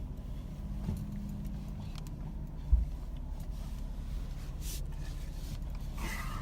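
Jeep engine idling with a steady low hum, with one short thump about two and a half seconds in.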